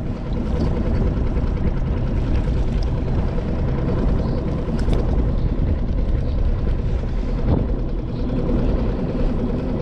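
Steady rumble of wind buffeting the microphone on open water, with a faint steady drone underneath and a couple of light clicks while a fish is unhooked.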